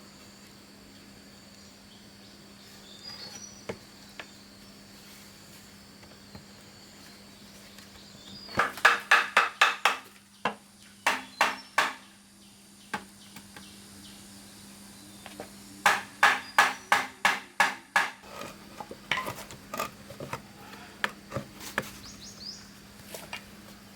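Rapid sharp strikes of a tool on bamboo, about five a second, coming in four bursts with short pauses between them.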